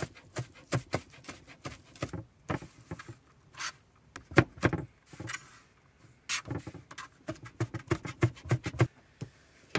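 Chef's knife chopping cilantro on a cutting board: sharp knocks of the blade on the board, in quick runs of about five a second with a couple of short pauses.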